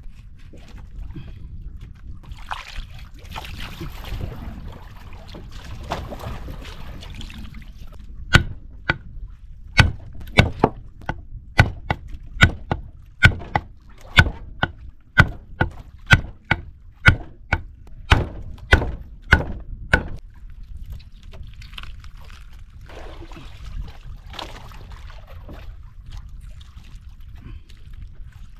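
Knife chopping fish on a wooden cutting board: a run of sharp, evenly spaced strokes, about two a second, starting about a third of the way in and lasting some twelve seconds, with quieter rustling handling noise before and after.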